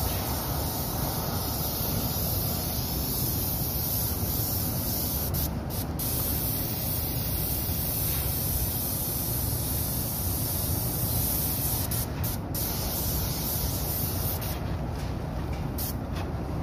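Paint spray gun spraying paint with a steady hiss, broken by a few short pauses, over a steady low rumble.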